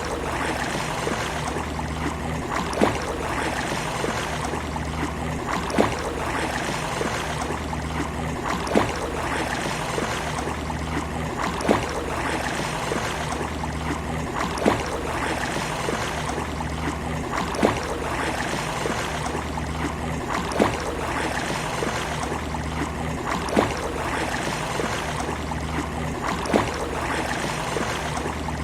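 Steady wash of sea waves on a beach, with a sharp short tick repeating evenly about every three seconds.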